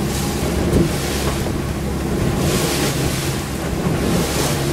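A boat's engines running steadily under way, with wind buffeting the microphone and water rushing past the hull.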